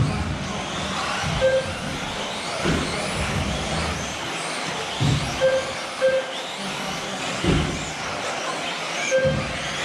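Several 1/10-scale 2WD electric RC buggies racing on astroturf: high motor whines rising and falling in pitch as they accelerate and brake, over steady tyre and running noise. Dull thumps come every second or two, and a few short electronic beeps sound.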